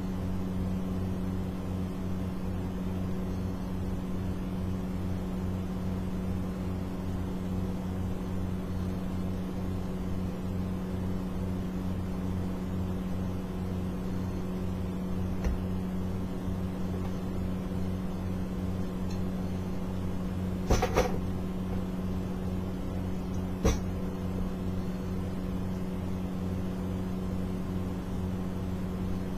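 Steady low electrical hum of a running motor or appliance. A faint click about halfway through, then a short clatter and one sharp click a few seconds later.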